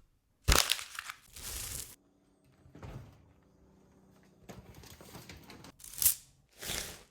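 Homemade foley sound effects: a sharp hit about half a second in, followed by several separate bursts of noise, the loudest around six seconds in.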